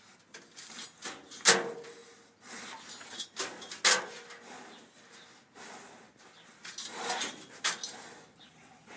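Sharp metallic clanks from a steel cattle head gate as the restrained animal jerks its head. Two loud ones come about a second and a half and four seconds in, each with a brief ring, and a cluster of smaller knocks comes near the end.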